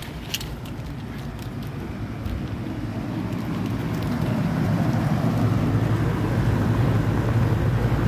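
Residential central air conditioner's outdoor condensing unit running: a steady hum from the compressor and condenser fan that grows louder as it is approached. The compressor that had been failing to start is now running. A short click comes a fraction of a second in.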